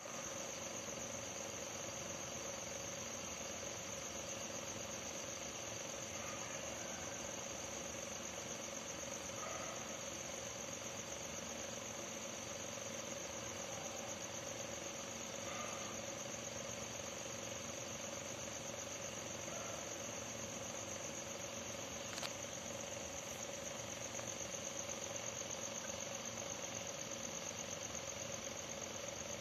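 Crickets chirping in a steady, continuous high trill, with a steady low hum beneath.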